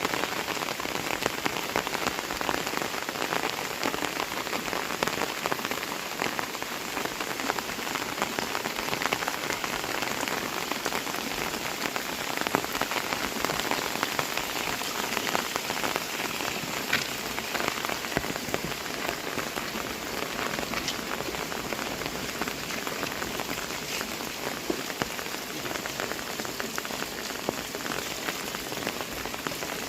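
Heavy rain falling steadily, a dense hiss with many fine drop patters on surfaces close by.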